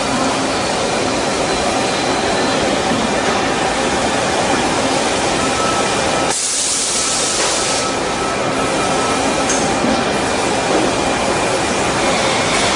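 Doosan PUMA QL300H CNC lathe running: a steady wash of machining and coolant noise with faint steady whines. About six seconds in, a high hiss of spray lasts a second and a half.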